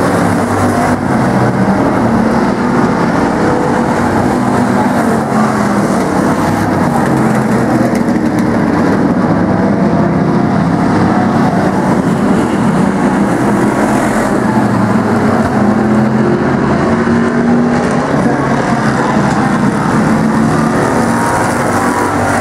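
Several demo race truck and car engines running loudly at once on a paved oval, a steady layered engine drone that carries on without a break.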